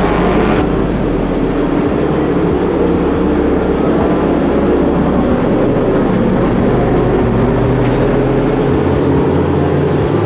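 Toyota Supra GT300 race car's 3.4-litre V8 engine running loud and steady.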